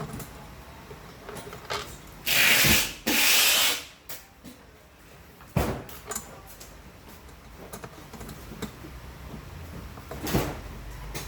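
Two loud hissing strokes, each under a second, a little over two seconds in, then a few sharp clicks and knocks of mechanical handling.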